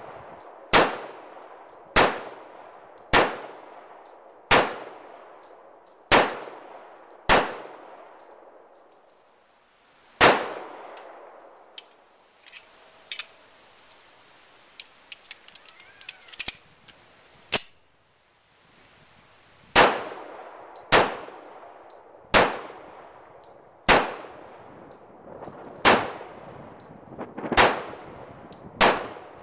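Taurus PT-1911 pistol fired in steady slow strings, about one shot every second and a half, each shot followed by a short ringing echo. A gap in the middle holds only a few light clicks before the firing resumes.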